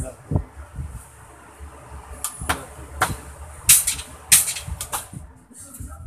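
Electric fan motor running fast on its lowest speed after its bushing was oiled and its capacitor replaced, with a low steady hum. Several sharp clicks and knocks from handling sound over it, the loudest a few seconds in.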